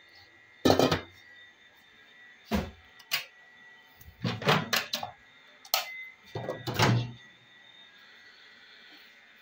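Kitchen handling noises: a string of knocks and clatters as things are picked up and set down on a counter. The loudest come about a second in and again near the seventh second.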